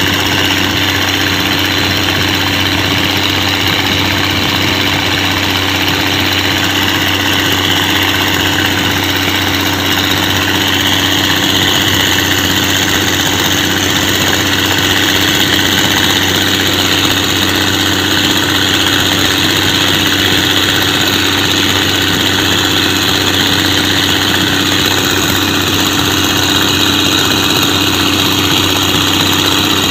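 Mitsubishi 6D16 six-cylinder diesel engine running at a steady speed, with an even drone and no change in pitch.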